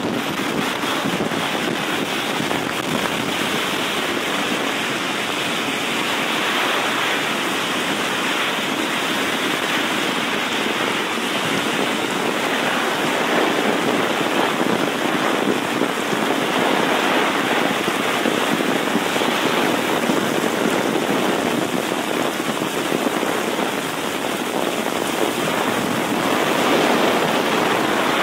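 Heavy rain pouring steadily onto a flooded city street, a dense even hiss with no let-up.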